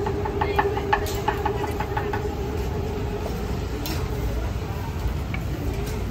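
A knife tapping quickly on a wooden cutting board as bananas are sliced, about five taps a second, stopping a little over two seconds in. A steady low rumble of street traffic runs underneath.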